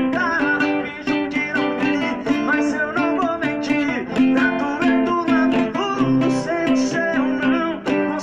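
Acoustic guitar (violão) playing a melodic passage, plucked and strummed notes over a repeating bass note.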